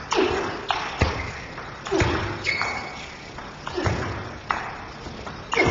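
Table tennis rally: the ball cracking off the players' bats and bouncing on the table, about one stroke a second, each hit echoing in a large sports hall.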